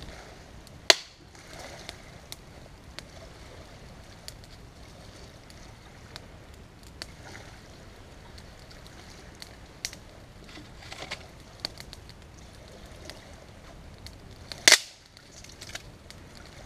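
Dry wood cracking: two loud sharp cracks, about a second in and near the end, with lighter crackling clicks in between.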